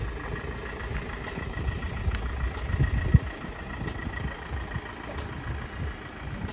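Ford Transit Custom van's diesel engine running low and steady as the van pulls away slowly. A brief thump comes about three seconds in.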